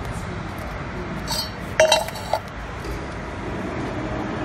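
Pieces of steel clinking and knocking together: a few sharp, ringing metallic strikes about two seconds in, over steady workshop background noise.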